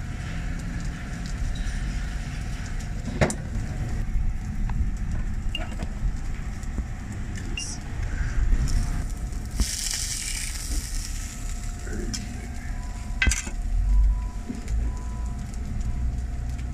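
Beef burger patties sizzling on a flat-top griddle, with a couple of sharp clicks and a brief louder hiss about ten seconds in.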